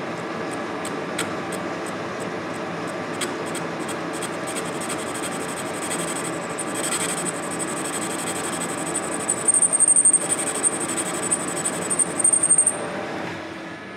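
Metal lathe taking a slow interrupted cut with a brazed carbide tool on a Baldor grinder guard's bearing cap, the tool ticking regularly, about two or three times a second, as it meets the interruption each turn. About halfway through a high-pitched squeal from the cut sets in and grows louder, then stops shortly before the end as the noise drops.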